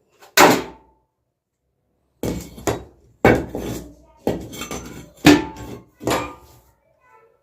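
Six loud, irregularly spaced knocks or blows, each ringing briefly as it fades.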